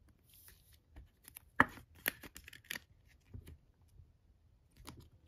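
Trading card being slid into a rigid clear plastic card holder and the case handled: light rustling and a string of sharp plastic clicks, the loudest about a second and a half in.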